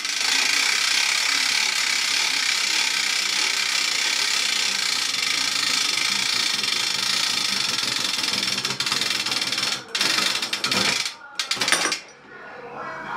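A mechanical rope-tensioning rig runs steadily, pulling a natural-fibre rope tight against a load cell. About ten seconds in, the noise breaks into short stop-start stretches, with a sharp, loudest peak near twelve seconds as the single-bight loop fails at about 135 kg, and then it cuts off.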